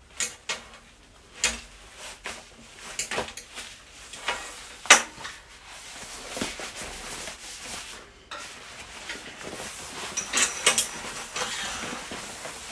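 Compact cordura shooting mat being unfolded and spread out on a steel table: fabric rustling and flapping, with a few sharp clicks and knocks from its straps and plastic side-release buckles, the loudest about five seconds in.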